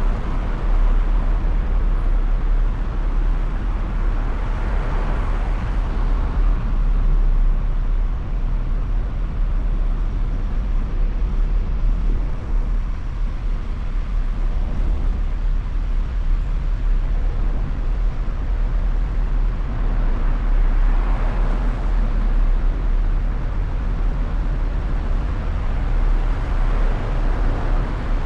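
Road traffic: a steady low rumble with vehicles going by, swelling near the start and again about twenty seconds in.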